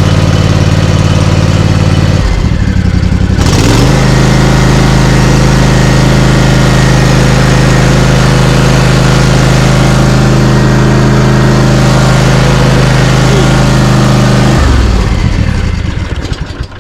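Ariens zero-turn mower's engine running on fresh oil after an oil change: it idles, revs up a few seconds in and holds steady at high throttle, then winds down and shuts off near the end.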